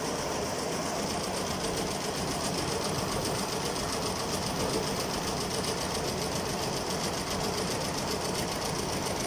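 Multi-head Richpeace industrial embroidery machine running, its needles stitching in a steady, rapid mechanical rhythm.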